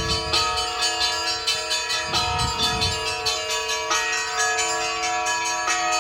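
Russian Orthodox cathedral bells ringing together. Several held bell tones hum underneath while smaller bells are struck in a quick, even run, several strikes a second.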